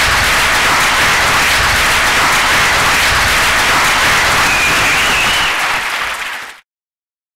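Audience applauding loudly and steadily at the end of a talk, fading out and cutting off about six and a half seconds in.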